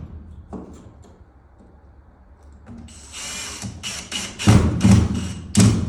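Power drill driving a screw into a wooden ceiling in short trigger bursts. There is a pause early on, then a longer run about three seconds in, followed by several quick bursts.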